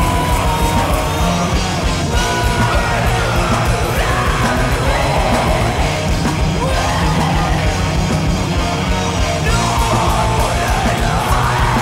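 Black metal demo recording: loud, dense distorted guitars and drums with harsh yelled vocals over them, at a constant level throughout.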